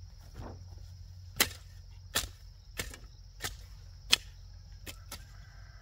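A hand tool chopping, about seven sharp strikes roughly two-thirds of a second apart, over a steady high insect buzz.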